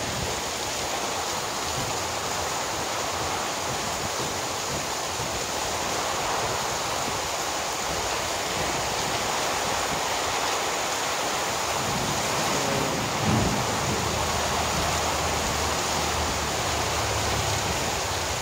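Heavy downpour: a steady hiss of rain pouring onto the street and roofs, with water running off the roof edge. A brief low rumble rises and fades about two-thirds of the way through.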